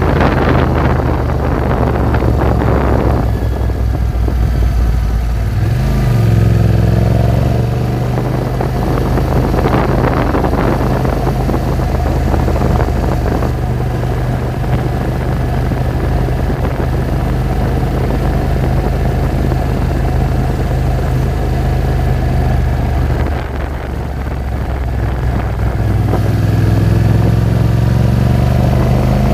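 Yamaha Ténéré 700's parallel-twin engine running as the motorcycle is ridden along a road; the engine note rises with acceleration about six seconds in and again near the end.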